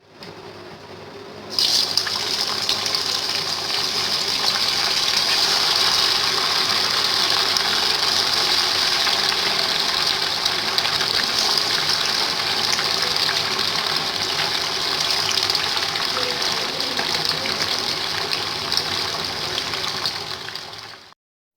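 Pomfret fish fingers deep-frying in hot cooking oil: a loud, steady sizzle that starts suddenly about a second and a half in as the fish goes into the oil.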